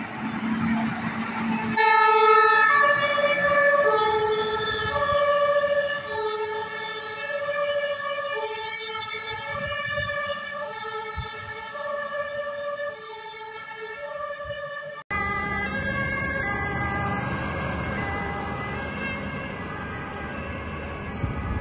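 German fire engine's two-tone siren comes on about two seconds in over the truck's diesel engine, alternating between a low and a high note about once a second. After an abrupt cut about fifteen seconds in, another fire engine's siren and engine carry on, steadier in pitch.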